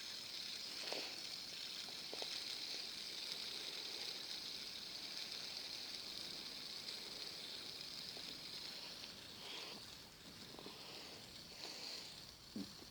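Fidget spinner's ball bearing whirring faintly and steadily as it spins freely, with a few faint ticks of handling.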